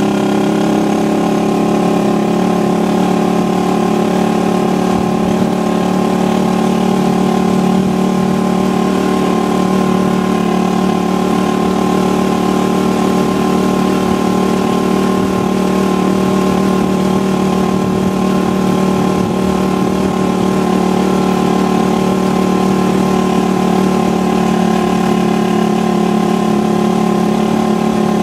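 Small motorcycle engine of a Philippine tricycle (motorcycle with sidecar) running at an even cruising pace, heard from inside the sidecar cab. Its pitch and loudness stay steady, with no gear changes or revving.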